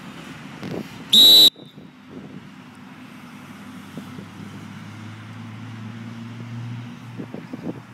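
Dog-training whistle blown once, a short, steady, high-pitched blast about a second in: the signal for two dogs to sit.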